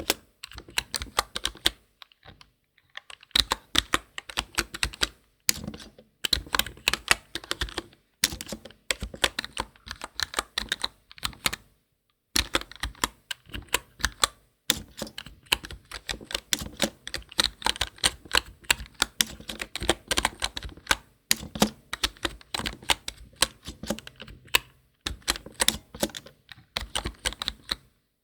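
Typing on a computer keyboard: fast runs of key clicks, broken by short pauses every few seconds.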